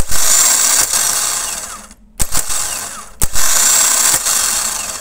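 Removed VW Polo starter motor spinning freely on the bench in two runs of about two seconds each, each starting with a sharp click and winding down, with a short click between them. The starter's nose bearing has collapsed, a common failure on Volkswagen starters.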